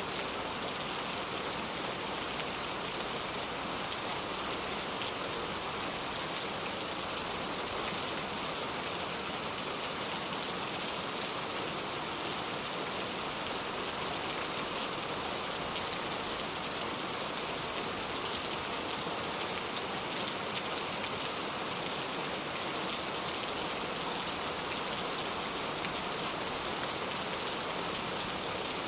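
Steady rain falling, a continuous hiss of drops with fine pattering ticks, unchanging throughout.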